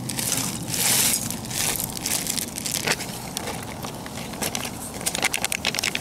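Plastic instant-ramen packet crinkling as the dry, broken noodles are poured out of it into a steel pan, with a dense run of sharp crackles near the end.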